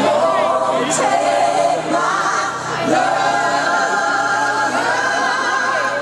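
Music over a sound system with a choir-like chorus of voices singing long held notes that change about once a second, in a gospel style.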